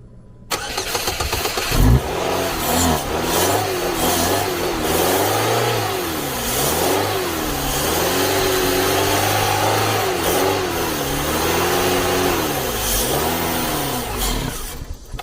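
Car petrol engine cranked and catching, then running with its speed swinging up and down again and again under the throttle, until it stops near the end. The mechanic puts this down to a failed fuel pump that no longer delivers fuel: the engine fires only when fuel is sprayed in.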